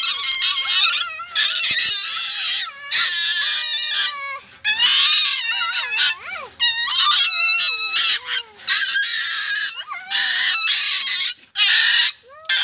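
A puppy crying and yelping over and over in high, wavering cries with short gaps between them, in distress at being bathed under a hand pump.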